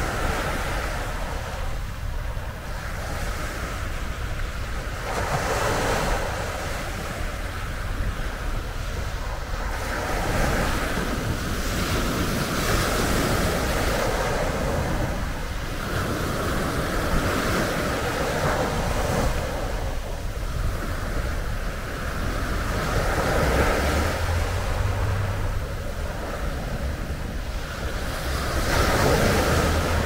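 Mediterranean waves breaking and washing up a pebble beach, swelling in a surge every few seconds. Wind rumbles on the microphone underneath.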